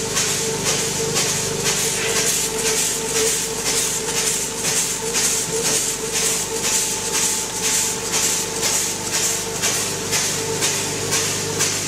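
Grain conveying and packaging machinery running: loose grain rushing through the feed tray and bucket elevator with a rhythmic hiss, about two pulses a second, over a steady machine hum.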